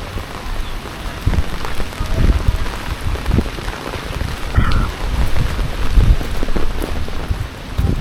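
Heavy typhoon rain falling, a steady hiss with irregular deep rumbles underneath.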